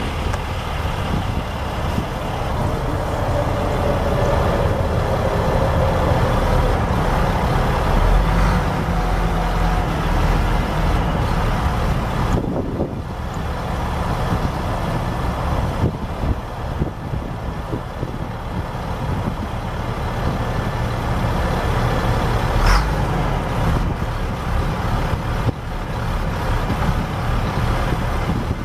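Caterpillar 3126 7.2-litre inline-six diesel of a Ford F750 truck idling steadily, with one sharp short sound about three-quarters of the way through.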